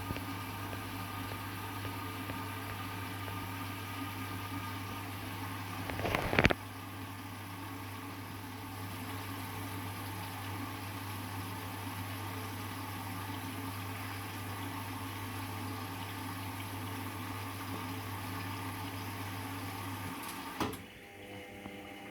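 Indesit EWD71452 washing machine filling at the start of its cycle: water rushing in with a steady electrical hum from the inlet valve, a brief louder surge about six seconds in. Near the end the fill cuts off suddenly with a click, leaving a quieter hum.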